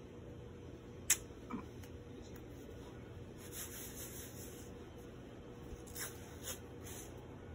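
White athletic tape being unrolled and worked onto an ankle: short rasping bursts of tape peeling off the roll, a longer one past three seconds and three short ones near the end, with a sharp click about a second in. A faint steady hum runs underneath.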